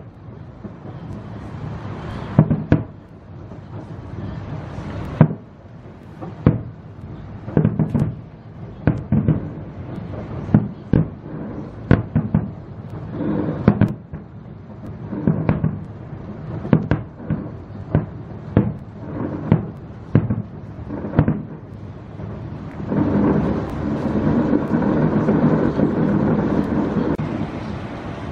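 Fireworks display: aerial shells bursting in an irregular series of sharp bangs, about one or two a second, each followed by a rumbling echo. Near the end comes a louder, continuous stretch of about five seconds.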